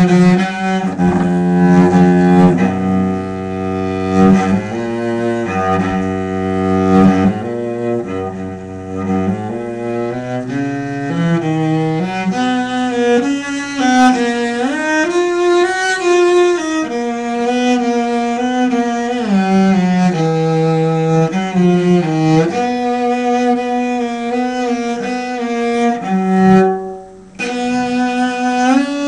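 Instrumental music: several sustained notes held together and moving from chord to chord, with a brief break near the end.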